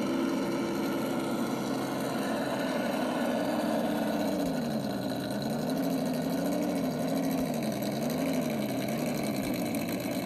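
An RC crawler truck's electric motor and gears whining steadily, the pitch rising and falling in slow waves as the throttle is worked.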